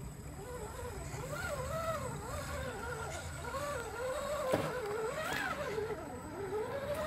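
RC scale crawler's electric motor and gear drivetrain whining, the pitch rising and falling constantly as the throttle is worked through the water. One sharp knock comes about four and a half seconds in.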